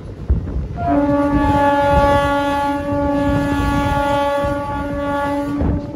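A train horn sounding one long, steady blast of about five seconds, starting about a second in, over the rumble of the moving local train running on the track.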